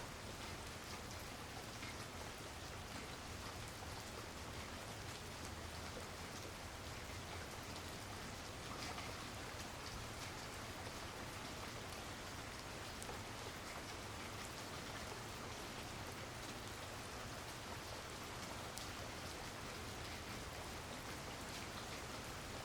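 Steady rain falling in a backyard, an even hiss of rain with scattered individual drops ticking on nearby surfaces.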